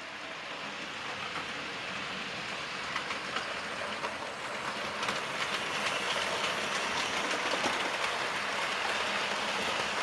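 Model railway train running on the layout track: a steady running noise with many fine clicks of wheels over rail joints. It grows gradually louder over the first several seconds.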